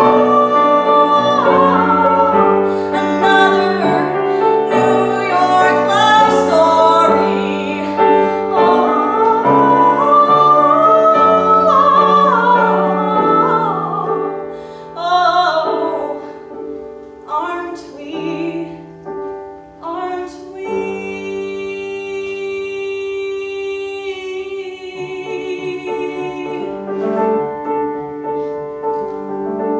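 A female singer sings a musical-theater song with grand piano accompaniment. About two-thirds of the way through she holds one long note, and near the end the piano carries on more softly.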